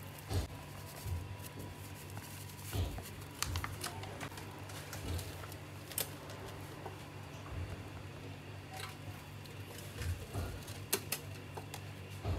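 Light scattered clicks and taps of pots, pans and utensils being handled, over a steady low hum.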